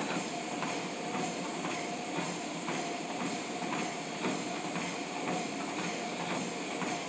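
Life Fitness treadmill running at a walking speed of 3.1 mph: a steady motor and belt whine, with footsteps falling on the deck about twice a second.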